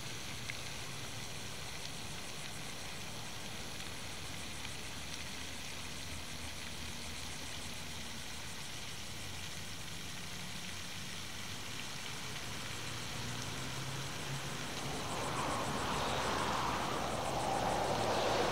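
Steady outdoor background hiss with a faint low hum, growing into a louder rushing noise over the last few seconds.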